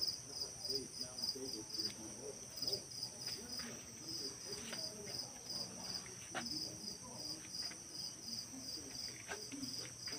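Crickets chirping in a steady rhythm, about three chirps a second, over a continuous high trill of other insects, with a few brief clicks.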